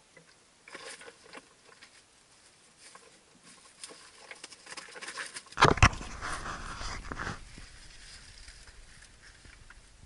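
Scuffing and scraping of a person crawling on gravel and stones into a narrow rock crevice, growing busier toward the middle. A cluster of loud knocks comes just past the middle, followed by a couple of seconds of rustling and scraping before it settles to quieter scuffs.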